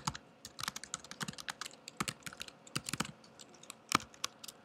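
Typing on a computer keyboard: a quick, irregular run of key clicks, with one harder keystroke about four seconds in.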